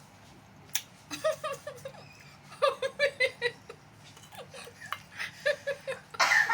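A woman laughing in three bursts of quick, high-pitched 'ha' pulses, with a loud breathy burst near the end.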